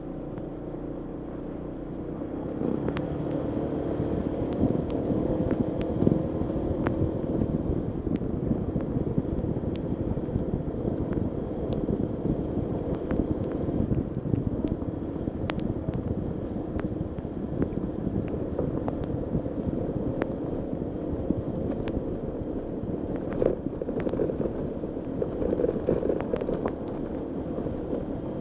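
Honda ADV150 scooter's single-cylinder engine running while riding over rough off-road ground, with wind noise on the microphone and scattered sharp knocks. The engine gets louder about two seconds in.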